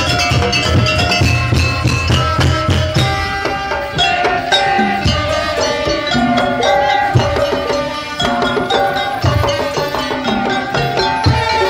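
Loud music of many drums beating fast, with a melody carried over the drumming.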